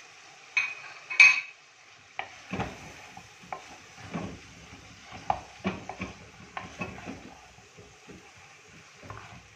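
Wooden spoon stirring minced mutton and sliced onions in a clay handi, knocking and scraping against the pot in an irregular run of strokes, the sharpest two about a second in. Under it, a light sizzle of the keema frying in the ghee it has released.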